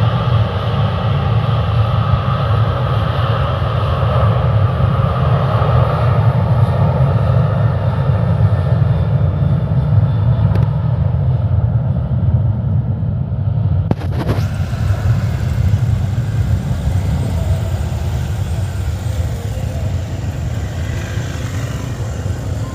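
Airplane engine rumble, steady and slowly fading, with a short knock about two-thirds of the way through.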